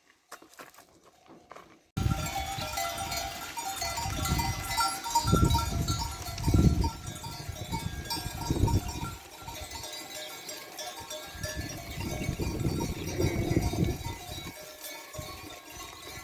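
A flock of sheep and goats with many neck bells clinking and tinkling, over irregular low rumbling. It starts abruptly about two seconds in.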